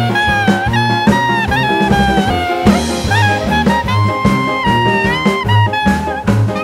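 Background music: a jazzy swing tune with a brass lead over a steady bass and drum beat.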